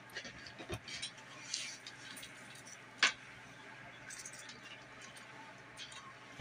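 Soft wet squishing and rustling of hands lathering shampoo through locs at a salon shampoo bowl, with a sharp click about three seconds in.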